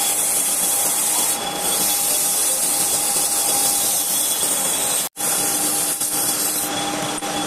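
Hand-held abrasive pad rubbing against a metal pulley spinning on a mini lathe: a steady sanding hiss over the lathe's steady motor whine. The sound drops out for an instant about five seconds in.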